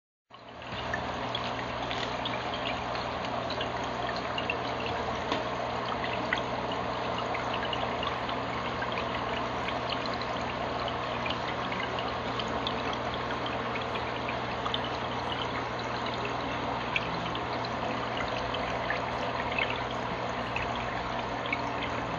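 Steady trickle and splash of aquarium water, the kind a filter outflow makes falling into the tank, over a low steady hum, with faint scattered clicks.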